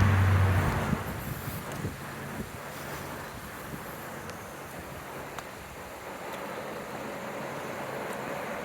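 A road vehicle passing close by: its engine hum cuts out under a second in, and the rush of its passing fades away into a steady, quieter background rush.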